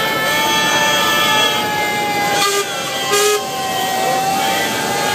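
Several steam whistles on showman's traction engines blowing together in a sustained chord of steady tones. Two short extra blasts come in about two and a half and three seconds in.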